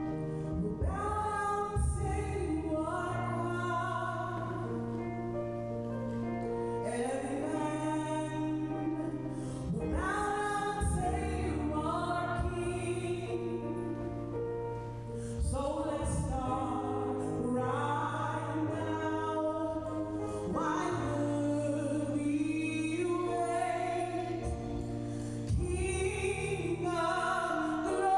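A woman singing a slow gospel song, her voice gliding between long held notes, backed by a church praise band with sustained bass notes.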